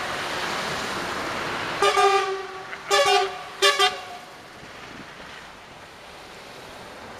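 Truck air horns sounding about two seconds in: a long blast, a second one, then two short toots, over the steady noise of heavy trucks driving past.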